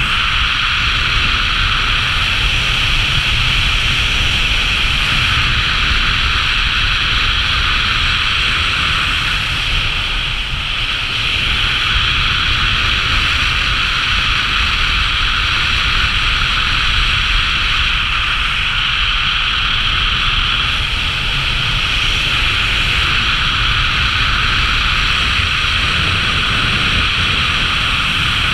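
Loud, steady rush of wind over an action camera's microphone from the airflow of a speed-flying descent.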